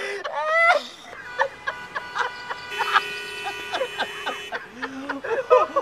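Several car horns honking, their held tones overlapping for about three seconds in the middle, with short shouts around them.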